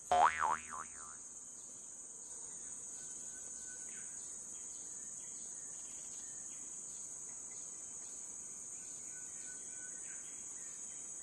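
Steady high-pitched drone of forest insects, with rapid regular chirping running through it. In the first second a brief loud call wavers up and down in pitch several times.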